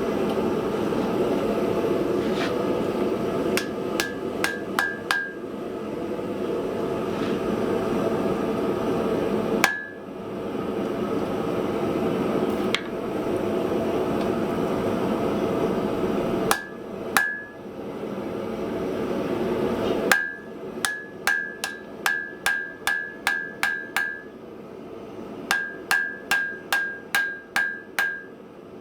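Hand hammer striking hot steel on an anvil, each blow leaving a short ring. A few scattered blows come first, then from about two-thirds in a steady run of about two to three blows a second, with a short break near the end, over a steady rushing noise.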